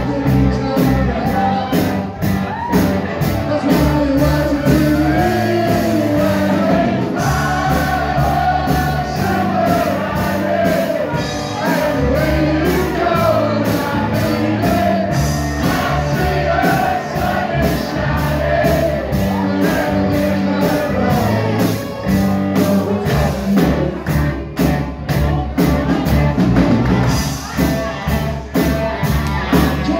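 Live rock band playing in a hall, with a singer over drums and bass keeping a steady beat.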